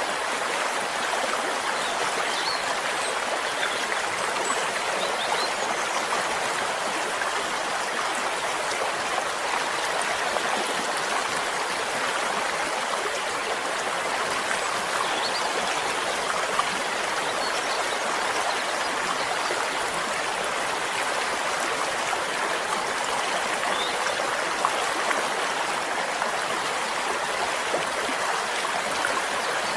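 Flowing stream: a steady, even rush and babble of running water.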